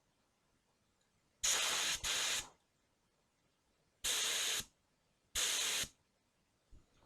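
Compressed-air paint spray gun triggered in four short hissing bursts, each about half a second long: two back to back, then two more spaced a second or so apart.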